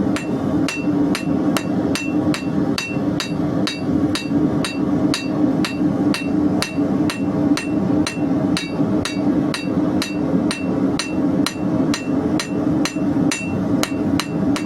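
Hand hammer striking hot 16 mm square steel bar on an anvil in an even rhythm, about two blows a second, each blow with a short metallic ring. A gas forge burner runs steadily underneath.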